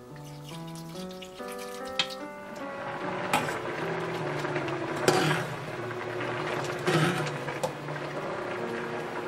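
Background music throughout; from about two and a half seconds in, water in a stainless steel pot bubbles and sloshes as a mesh skimmer scoops out blanched burdock root, with several sharp metal clinks of the skimmer against the pot.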